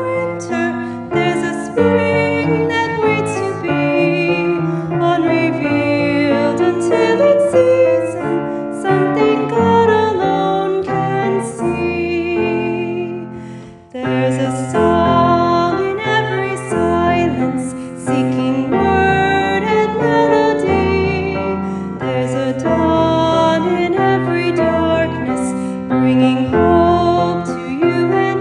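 A song with piano accompaniment and a singing voice. About halfway through the music fades for a moment, then comes back in.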